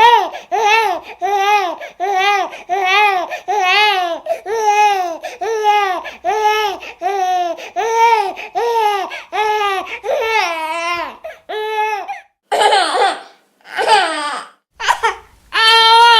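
Baby crying in short, rhythmic wails, about two a second. Near the end the wails come as longer, separate cries with short gaps between them.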